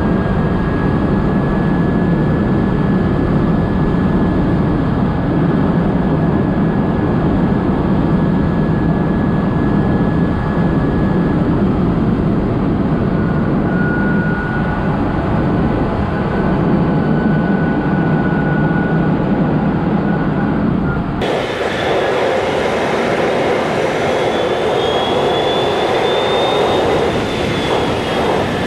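Renault Twizy electric quadricycle under way: a thin electric motor whine over loud, steady wind and tyre noise in the open-sided cabin. About 21 s in, the sound cuts abruptly to a brighter mix with a higher whine that rises and falls.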